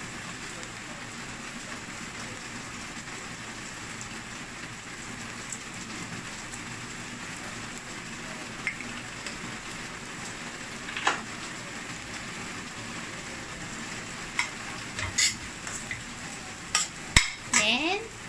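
Cooked rice sizzling in a stainless-steel frying pan as a metal spoon stirs it. Sharp clinks and scrapes of the spoon against the pan come now and then, most often in the last few seconds.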